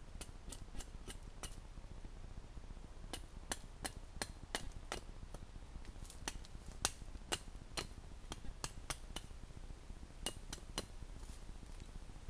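Sharp metallic clicks of a metal hand tool working at a wooden stick: a quick run of strokes, a short pause, then a long run at about two strokes a second, and a last few near the end.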